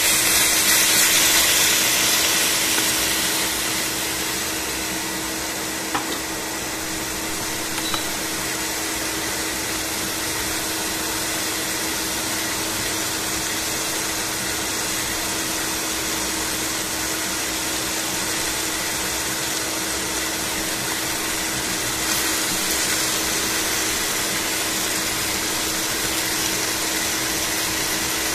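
Chicken pieces sizzling in a stainless steel frying pan: a steady hiss that swells in the first few seconds and again later, over a steady low hum. Two light clicks a few seconds in.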